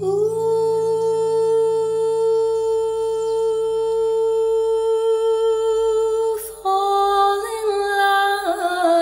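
A woman's voice holding one long note for about six seconds, sliding up into it at the start. After a brief break she moves to a slightly lower note that wavers and steps down.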